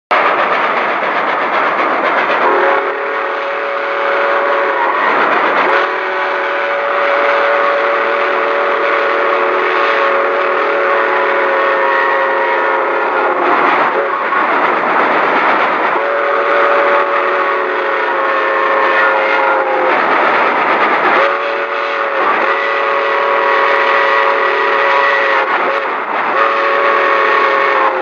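Steam locomotive whistle sounded through a sound-changer app: a series of long, steady blasts of several notes at once, the longest about seven seconds, with short breaks between. A steady train running noise lies underneath.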